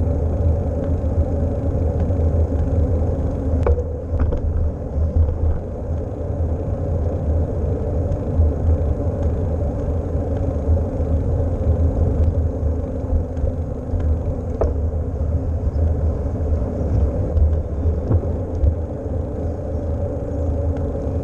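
Wind rumbling steadily on a GoPro microphone on a moving bicycle, with tyre and road noise underneath and a few faint clicks from the bike, about four seconds in and again near fifteen seconds.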